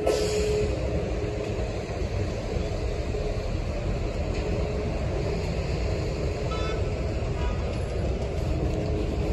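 Street traffic at a busy intersection: cars and city buses driving past, a steady rumble.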